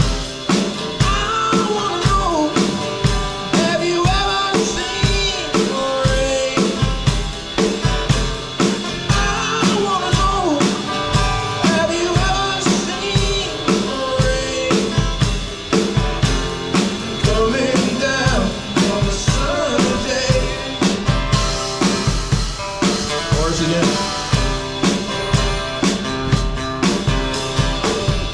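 Rock band playing with a drum kit keeping a steady beat under guitars and a melodic lead line.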